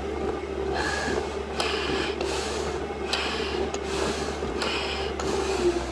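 Quick, regular hissing breaths inside a firefighter's SCBA face mask during a sustained climb, over a steady low hum that drops in pitch near the end.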